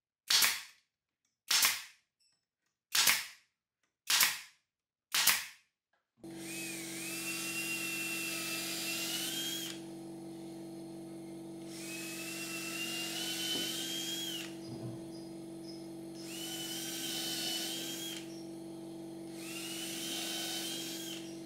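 Pneumatic brad nailer firing five times, about a second apart, into the corner of a plywood drawer box. Then a cordless drill runs four times for a few seconds each, its whine rising slightly as it drills into the plywood, over a steady hum.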